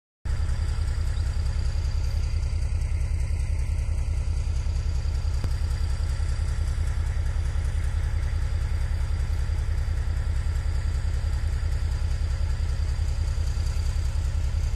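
Engine idling steadily: a low rumble with a fast, even pulse, and a faint steady high whine above it.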